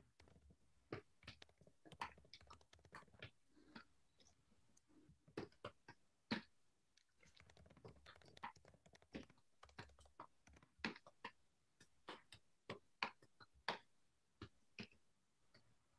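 Faint typing on a computer keyboard: irregular runs of keystrokes with pauses, a few keys struck louder than the rest.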